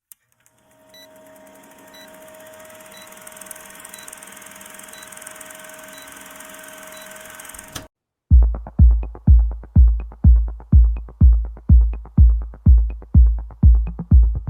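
Electronic background music: a quiet sustained synth drone with soft regular beeps, a short break of silence about eight seconds in, then a heavy, booming kick drum beat at a steady pace of roughly one and a half beats a second.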